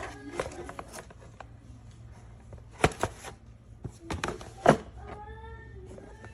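Several sharp knocks and taps, the loudest about three seconds in and just before five seconds, over a low steady hum.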